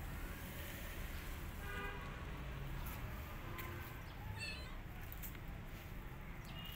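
A kitten meowing briefly twice, the second call higher, over a steady low background rumble.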